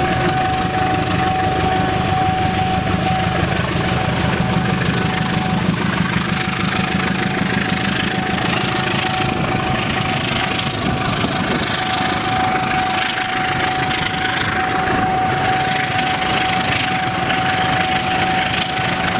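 Diesel locomotive passing close by with its engine running, followed by passenger coaches rolling past with steady wheel-on-rail noise. A steady high-pitched whine runs under the whole pass.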